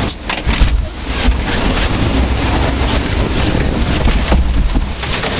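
Wind buffeting the microphone, with rushing water, as a log flume boat tips over the crest of its drop and starts down.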